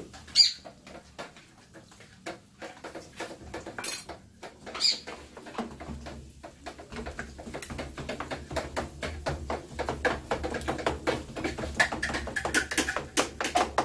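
A few sharp clinks of a utensil against cookware, then a spoon stirring and scraping scrambled eggs and sausage in a frying pan, the rapid scraping growing busier and louder toward the end.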